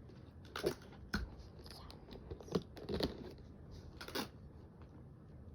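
Sticky tape and packaging being handled while toys are taped back up: about five faint, scattered crackles and snaps of tape being pulled, torn and pressed down.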